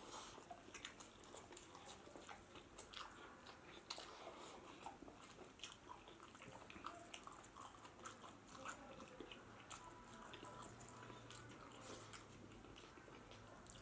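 Faint, close-miked chewing and mouth sounds of a person eating, with many small irregular clicks and smacks.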